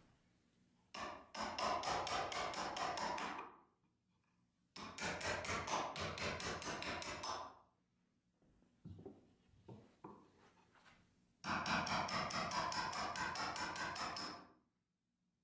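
Shop-made high-speed-steel wood chisel paring the corner of a wooden block. There are three spells of quick, evenly repeated cutting strokes, about six a second, each spell two to three seconds long, with a few faint knocks between the second and third.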